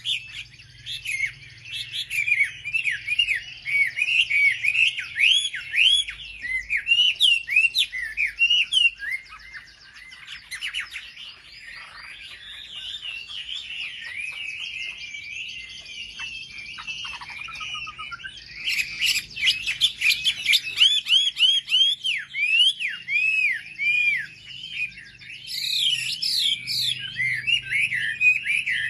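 Wambi bird singing, a fast run of short, sharply arched chirps repeated several times a second, with a softer, more tangled twittering stretch in the middle. It is a song used as a lure to set other wambi birds singing.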